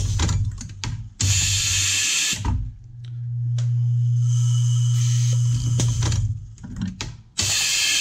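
Pneumatic automated crimp machine cycling: two loud bursts of compressed-air hiss about six seconds apart as the crimp head fires. Between them the vibratory parts bowl hums steadily for about three seconds while it refills the slide with pins and sockets. Light clicks of contacts and wire being handled come around the bursts.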